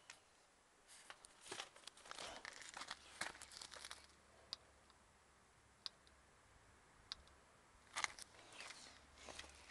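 Faint crinkly rustling and crunching in two spells, with a few isolated sharp ticks between them and a faint low hum starting about three seconds in.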